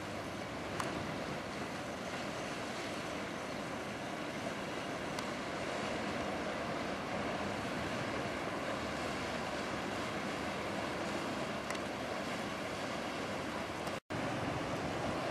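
Steady rushing outdoor noise of wind on the microphone and harbour water, with no clear engine note; the sound drops out for an instant near the end.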